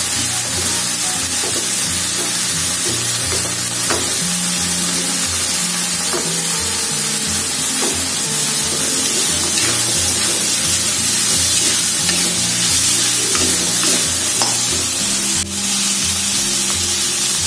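Shrimp and carrot slices sizzling as they stir-fry in a hot wok, with a metal spatula scraping and slices dropping in now and then.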